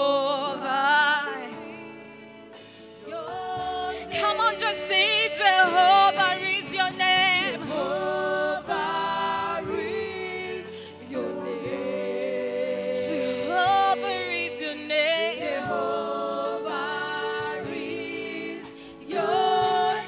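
Gospel worship music: voices singing a song with wavering, held notes over sustained accompaniment, with a short lull about two seconds in.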